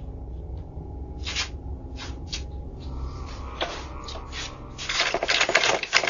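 Someone handling a front door, picked up by a doorbell camera's microphone over its steady low hum: several separate knocks and clicks, then a dense burst of rattling and scraping in the last second or so.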